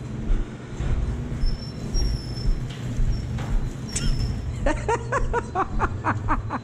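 A man laughing hard, a quick run of 'ha-ha-ha' beats starting about two thirds of the way in, over a steady low rumble.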